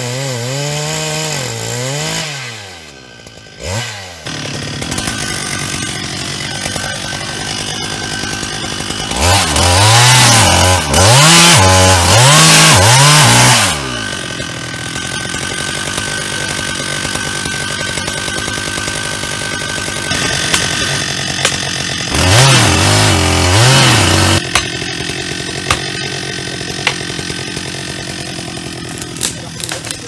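Chainsaw cutting into an ash trunk to fell it: the engine runs at high revs and wavers under load in hard cutting spells, loudest about nine to fourteen seconds in and again around twenty-two to twenty-four seconds, and drops back to a lower, steadier running in between.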